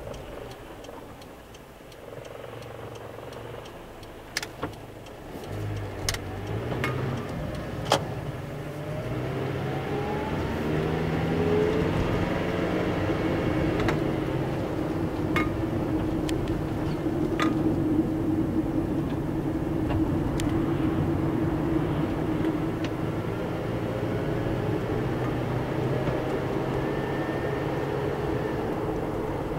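A car's engine and tyre noise heard from inside the cabin: quiet near idle at first, then the car pulls away and accelerates with a rising engine pitch about ten seconds in, settling into a steady cruise with road noise. A few sharp clicks in the first eight seconds.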